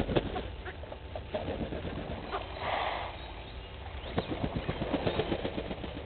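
Grey go-away birds close by: a series of quick flaps and rustles, bunched at the start and again in the second half, with one brief harsh call about halfway through.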